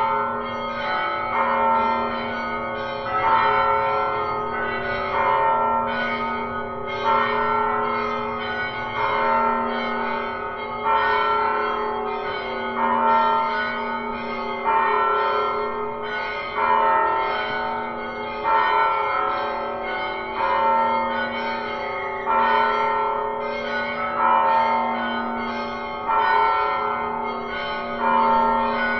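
Church bells ringing: several bells struck one after another in a round that repeats about every two seconds, their tones overlapping and ringing on.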